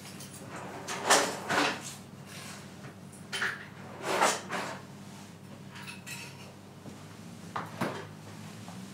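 Dishes and kitchenware clattering in several short, separate bursts a second or two apart, over a faint low steady hum.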